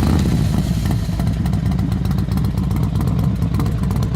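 A dragon fire-breath and roar sound effect: a loud, continuous low rumbling rush with crackling all through it.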